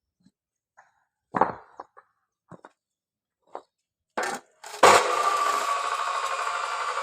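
A few scattered knocks and clatters, then a power cutting tool for paving blocks starts with a sudden loud burst about five seconds in and keeps running steadily with a faint, slowly falling whine.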